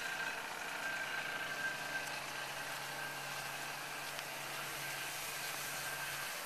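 Engine of a roof-cleaning spray rig running steadily as the tile roof is sprayed with a wand, a steady hum whose low note drops out near the end.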